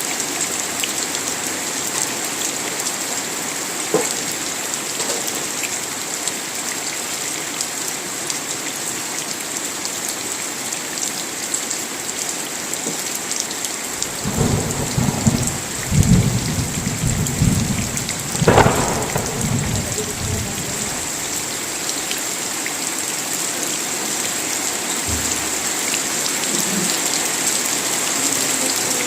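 Steady rain falling, with a thunderclap about halfway through: a low rumble that rolls for several seconds, peaks in a sharp crack, then dies back under the rain.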